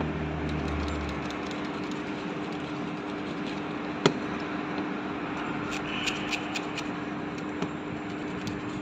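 Steady mechanical hum in the background, with one sharp metallic clink about four seconds in as a new sealed ball bearing for the condenser fan motor is handled and set down on the work surface, followed by a few light taps near the end.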